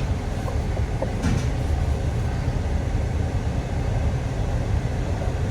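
Steady low rumble of a running truck engine.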